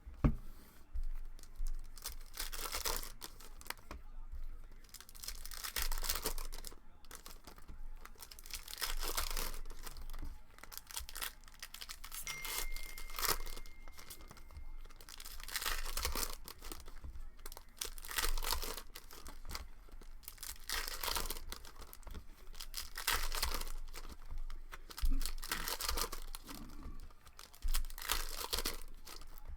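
Foil wrappers of basketball card packs being torn open and crinkled in a run of rustling tears, after a sharp knock right at the start.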